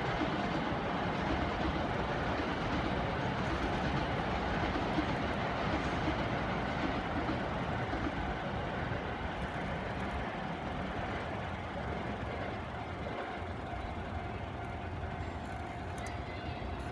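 Electric commuter train running past a level crossing: a steady rumble of wheels on rail and running gear that eases off slowly toward the end.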